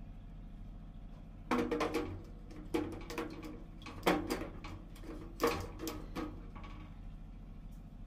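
D-cell batteries clicking and clattering as they are handled and fitted into the plastic battery holder under a gas water heater: four short bursts over about four seconds.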